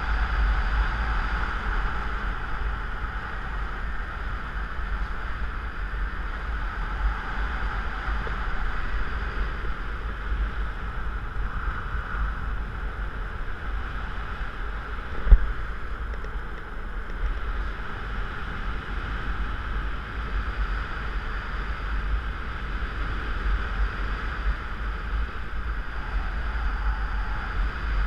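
Airflow buffeting the camera microphone of a paraglider in flight: a steady low rumble with a hiss of rushing air, and a single sharp click about halfway through.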